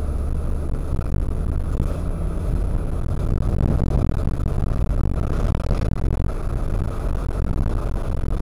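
A car's engine and tyres heard from inside the cabin through a dashcam's built-in microphone: a steady low rumble as the car drives along.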